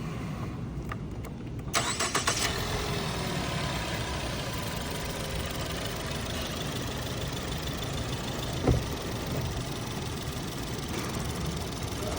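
Ford engine running steadily at idle. A short burst of noise comes about two seconds in, and a single sharp knock a little past the middle.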